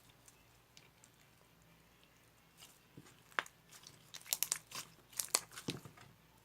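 Crinkling, crackling handling noise: a quick run of sharp clicks and rustles that starts about three seconds in and lasts about three seconds.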